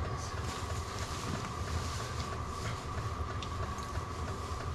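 Heaters running steadily inside the ice-fishing shelter: a constant low rumble with a thin, unchanging whine over it.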